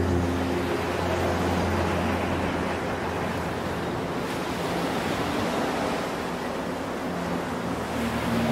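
Steady rush of sea water and wind on a racing sailboat's deck, with waves and spray breaking over it.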